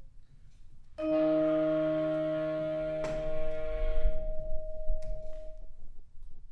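Vibraphone chord struck about a second in and left ringing, its several bell-like tones fading slowly over about five seconds. Low room rumble underneath as the chord dies away.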